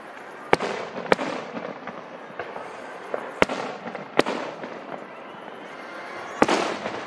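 Aerial fireworks shells bursting overhead: five sharp bangs at uneven intervals, each trailing off in an echoing tail, the last with the longest tail.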